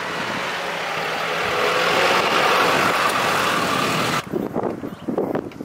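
Road and running noise of a truck on the move, swelling a little about two seconds in. It cuts off abruptly about four seconds in, and a few light knocks follow.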